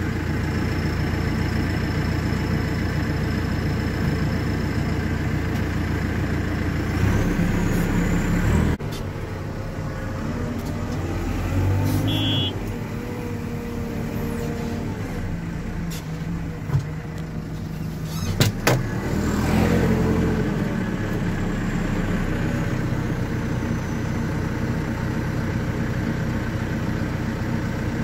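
A JCB hydraulic excavator's diesel engine running steadily, heard from inside the cab. About nine seconds in the sound cuts abruptly to a lower, less even engine, with a few sharp clicks a little past the middle.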